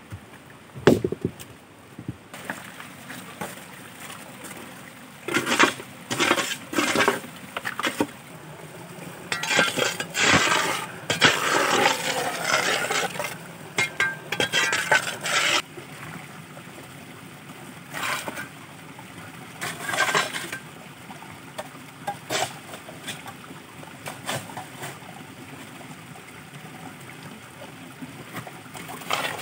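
Intermittent clinks, knocks and scraping of hard objects being handled, busiest in a stretch about halfway through.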